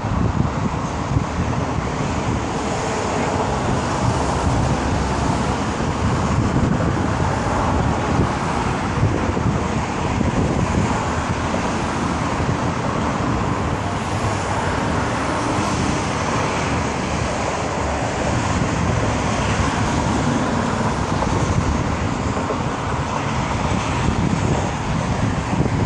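Steady road traffic noise from a busy expressway, a continuous hum of passing cars with no single vehicle standing out, and wind rumbling on the microphone.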